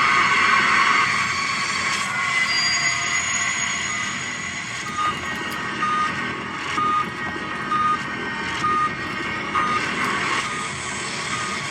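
Heart monitor beeping in time with a heartbeat: short, high, even beeps about once a second, starting about five seconds in, over a steady hiss.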